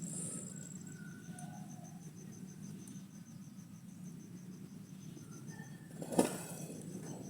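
Insects chirping in a steady, faintly pulsing high-pitched trill over a low background hiss, with one sharp knock about six seconds in.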